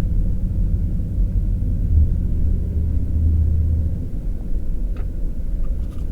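Steady low rumble of a vehicle's engine and running gear heard from inside the cabin, swelling a little between about two and four seconds in.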